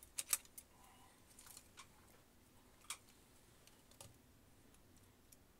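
Light clicks and taps of small plastic and metal parts handled by fingers while a cassette deck transport is reassembled: a close pair near the start, then single clicks spread a second or so apart, the last about four seconds in.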